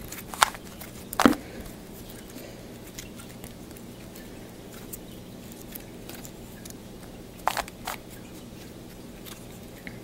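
Plastic Rubik's Cube layers being twisted by hand, clicking and clacking in scattered bursts: a few sharp clicks in the first second and a half, then a pair about seven and a half seconds in. A low steady hum lies beneath.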